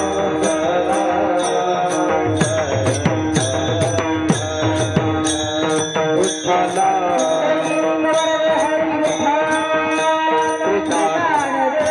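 Kirtan accompaniment: small hand cymbals (taal) struck in a steady beat, about three strikes a second, over a sustained harmonium melody and hand-drum strokes.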